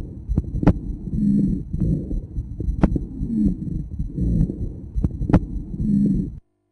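Heart sounds recorded through a stethoscope: a low beat repeating about once a second, with a few sharp clicks. The recording cuts off suddenly near the end.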